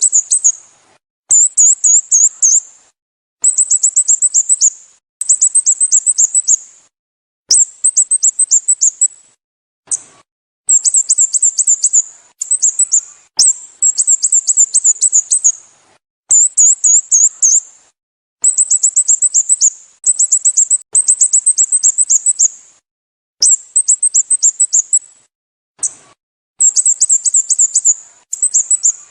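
Sooty-headed bulbul call recording: bursts of about a second and a half of rapid, very high, down-slurred notes, repeated over and over with short silent gaps between them.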